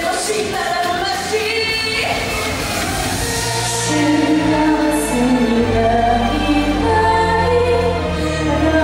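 Song with female singing, the voices layered, over a band backing. A low bass line comes in about three and a half seconds in, and the music gets louder about four seconds in.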